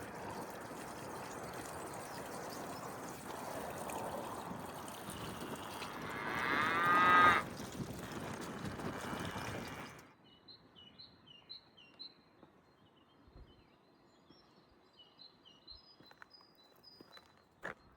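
A cow mooing once, loudly, over the steady rush of mountain stream water; the call lasts about a second and a half, some six seconds in. About ten seconds in the water sound stops abruptly, leaving faint small-bird chirps.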